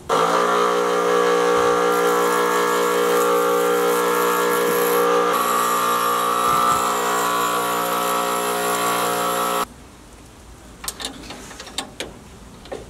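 Ryobi bench grinder running, its wheel grinding down the flange of a steel nut so the nut clears a weld on the shock mount: a steady motor whine under a grinding hiss that cuts off suddenly near the end. A few faint clicks follow.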